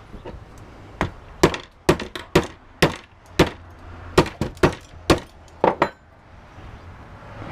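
Hammer blows on an LED flood lamp, about a dozen sharp cracking strikes in quick, irregular succession starting about a second in, breaking open its plastic front.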